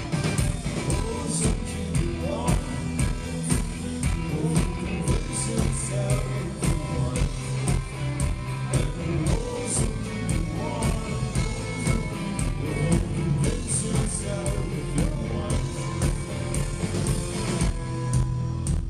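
Live indie rock band playing at full volume: drums keeping a steady beat under electric guitar, bass and keyboard, with a male lead singer, heard from within the crowd.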